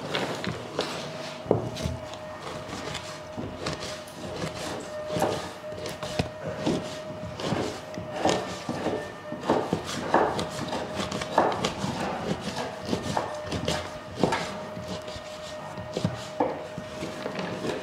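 Knife chopping fat into cubes on a wooden cutting board: irregular strikes of the blade against the board, a little over one a second, over a faint steady hum.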